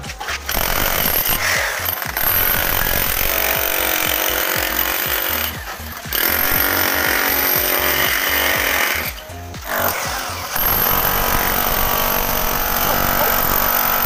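Electric rotary hammer with a chisel bit chipping a trench into a concrete floor. It runs in long stretches, stopping briefly about five and a half seconds in and again about nine seconds in.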